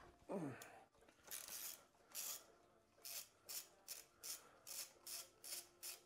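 Quick, rhythmic rubbing strokes by hand on the motorcycle engine, about two to three a second. A short squeak falling in pitch comes about half a second in.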